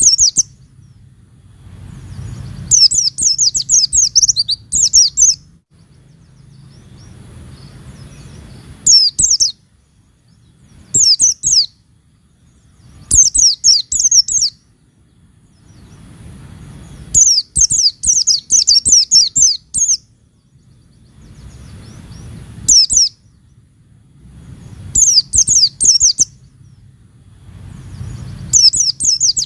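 Pleci (white-eye, Zosterops) song: repeated bursts of fast, high twittering, each lasting a second or two, with short pauses between them. A faint low rumble runs under the pauses.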